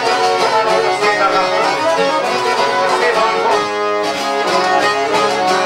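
Albanian folk song in an instrumental passage: a fiddle melody over plucked strings.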